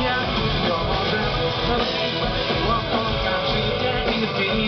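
Rock band playing live, with electric guitar over the full band, amplified through the stage sound system.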